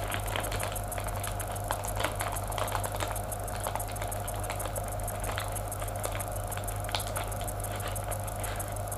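Faint crinkling and clicking of a small plastic bag of screws and hardware being handled, over a steady low electrical hum.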